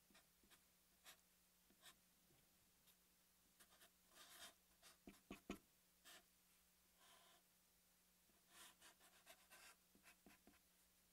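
Near silence with faint strokes of a Sharpie marker drawing on paper: a few short strokes in the middle and a few more near the end.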